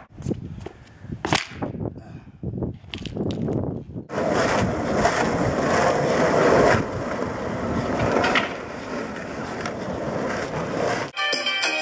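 Skateboard wheels rolling on asphalt, a steady rumble that starts about four seconds in, after a few scattered knocks.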